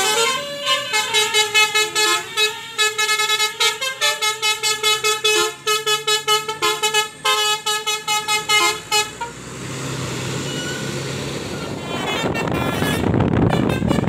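A coach's telolet basuri horn, a multi-trumpet air horn, plays a quick melody of short notes for about nine seconds. Then the coach's engine runs and the bus passes close by, louder near the end.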